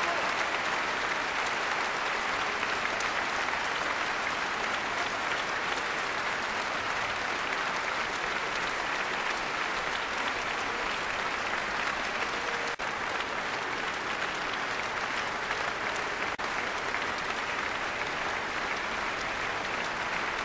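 A large concert-hall audience applauding steadily.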